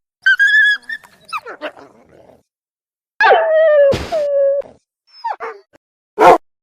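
Wolf-like canine whines and yelps standing in for an extinct cave wolf: a high whine, a few quick falling yelps, a longer whine that slides down and holds, two short yelps, then a short rough bark near the end.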